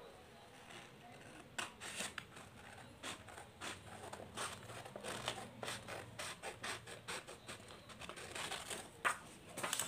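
Scissors cutting a sheet of paper: a run of short, quiet snips, about two a second, starting about a second and a half in.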